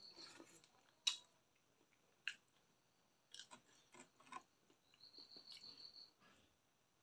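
Faint close-miked eating sounds: chewing and mouth clicks, with a few sharp clicks spread through, the loudest about a second in.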